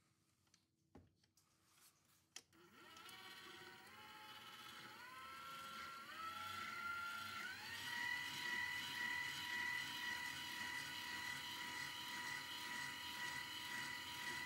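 Electric tilt-head stand mixer with a flat beater starting up in cake batter after a couple of light clicks. Its motor whine climbs in steps as the speed lever is pushed up notch by notch, then runs steady at the higher speed.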